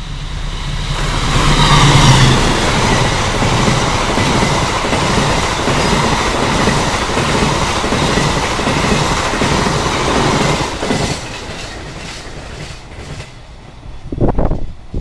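Diesel-hauled express passenger train passing close by at speed. The locomotive's engine is loudest about two seconds in, then the coaches' wheels clatter rhythmically over the rail joints for several seconds before fading away. A brief low thump near the end.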